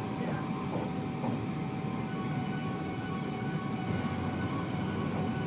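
Interior of a moving Dutch intercity train: a steady rumble of the carriage running on the rails, with a faint steady whine above it.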